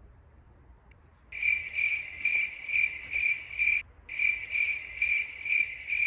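Cricket chirping sound effect: a regular high chirp repeating about two to three times a second, starting about a second and a half in, with a short break around four seconds, the stock 'awkward silence' crickets gag.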